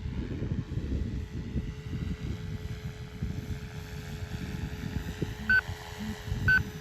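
SAB Goblin 700 electric RC helicopter flying, a steady whine over an uneven low rumble. Two short electronic beeps sound a second apart near the end.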